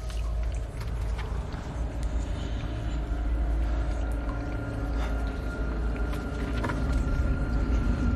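Low, steady rumbling drone with a faint high tone held above it, and a few soft ticks.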